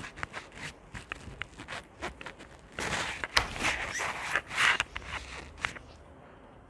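Slime being squished and pulled by hand, a run of sticky clicks and pops, with a louder, denser squelching stretch in the middle.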